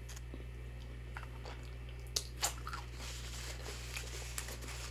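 Close-miked eating of fried food: chewing with a few short crisp crunches, the two loudest a little past two seconds in, over a steady low hum.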